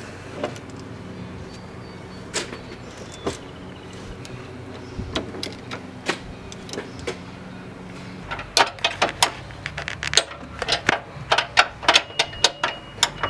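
Hand tools working on the front suspension bolts: scattered metallic clicks and clinks, turning to a quick run of clicks from about eight seconds in as nuts are tightened, over a low steady hum.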